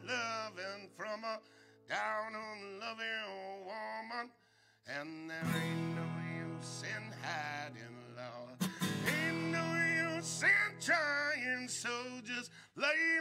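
Live acoustic guitar music: low notes held under a pitched melody line that bends up and down. The playing breaks off briefly about four and a half seconds in, then comes back.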